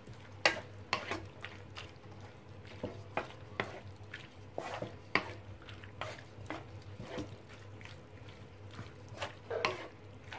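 Wooden spatula scraping and knocking against a frying pan as sliced bitter gourd and meat are stir-fried, in irregular clicks about once or twice a second, over a faint sizzle and a low steady hum.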